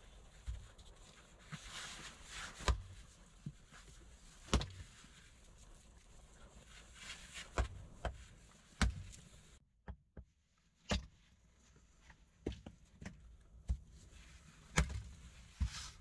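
Irregular sharp knocks and clicks, about one every second or so, over light rustling: objects being handled on the shelter's earth floor. The sound drops out briefly near the middle.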